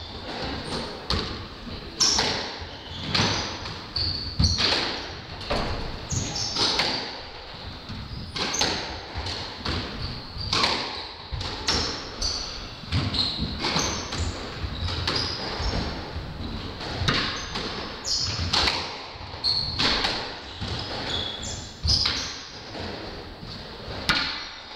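A squash rally: sharp cracks of rackets striking the ball and the ball hitting the court walls, about one or two a second, mixed with players' shoes squeaking on the hardwood court floor.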